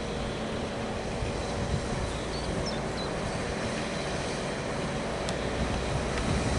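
Transport for Wales class 197 diesel multiple unit passing through a station, a steady mix of diesel engine drone and wheels running on the rails, growing a little louder near the end.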